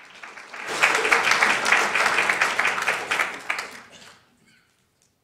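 A small audience clapping for about three seconds, swelling in just under a second in and dying away about four seconds in: applause for a correctly spelled word at the close of a spelling-bee round.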